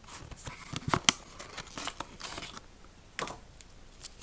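Toy packaging being handled: rustling and crinkling of paper and plastic, with a few sharp clicks, the loudest about a second in.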